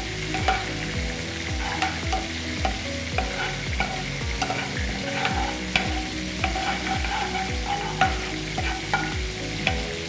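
A spoon stirring cumin seeds in heating oil in a nonstick frying pan, scraping and tapping the pan, with food sizzling as the seeds begin to fry. A steady low beat of background music runs underneath.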